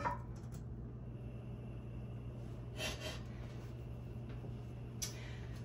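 Quiet room tone with a steady low hum, broken by two short breath sounds about three and five seconds in.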